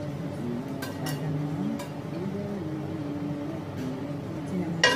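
A utensil clinking against a plate several times, lightly at first and then with one louder, ringing clink near the end. A low wavering melody runs underneath.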